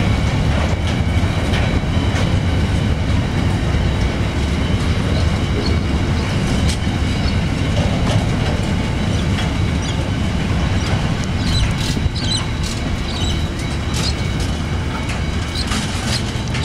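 Empty steel-train flat wagons rolling past with a steady heavy rumble, their wheels clicking over rail joints. Brief high wheel squeaks come in several times near the end.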